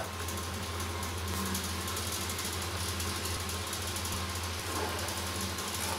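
Steady low mechanical hum with a hiss over it, even and unchanging throughout.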